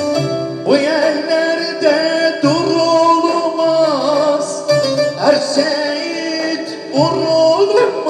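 A man's voice singing long, wavering held notes with sliding ornaments, without clear words, over instrumental backing of a Turkish folk song.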